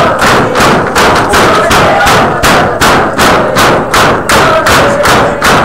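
Loud, steady rhythmic pounding, about two thumps a second, with voices calling out over the beat.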